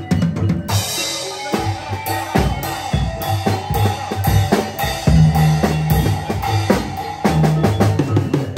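Acoustic Pearl drum kit being played in a busy rhythm: bass drum, snare and cymbal hits.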